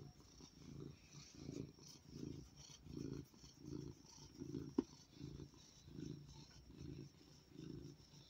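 Grey tabby cat purring while being stroked and scratched, the low purr swelling and fading about twice a second. A single sharp click sounds about five seconds in.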